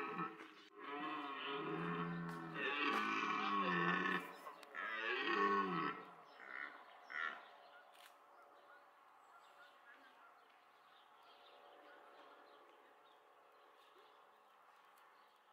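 Red deer stags roaring in the rut: three long, deep roars that rise and fall in pitch over the first six seconds, then two short grunts.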